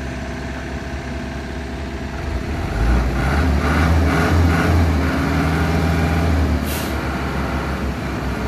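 Diesel dump truck engine running steadily, then getting louder about two and a half seconds in as the truck pulls up. There is a brief hiss of air partway through.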